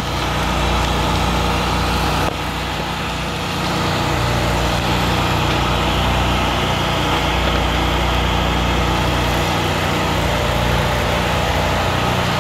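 Lincoln 305D diesel engine-driven welder running steadily, a low engine drone. Its level drops a little about two seconds in and picks up again about a second and a half later.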